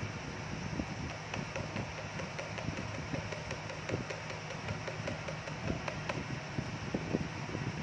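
Paydirt being worked in a gold pan: small stones and grit clicking and scraping irregularly against the pan, over a steady low hum.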